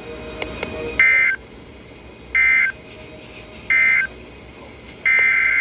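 NOAA Weather Radio SAME digital data tones: three short buzzy bursts about 1.3 s apart, the end-of-message code closing the watch message, then a longer burst starting near the end, the header code that opens the next alert.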